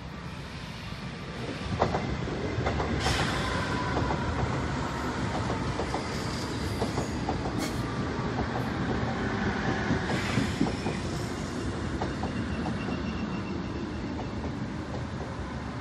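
Seoul Metro Line 1 electric train with rheostatic control passing close by. It grows louder about two seconds in, with wheels clattering over rail joints, a low rumble, and thin squealing and whining tones over the top.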